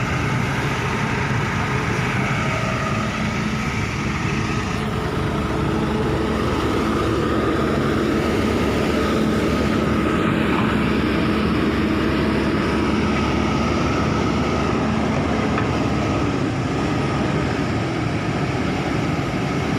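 Kobelco excavator's diesel engine running steadily under load with a steady whine over it, as the machine is driven and manoeuvred.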